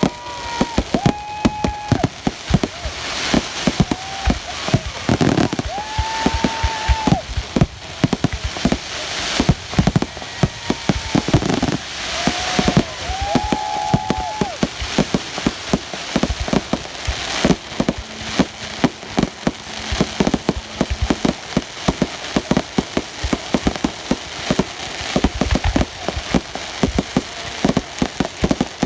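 Fireworks and firecrackers going off in a rapid, continuous crackle of sharp bangs. Several short held tones sound in the first half.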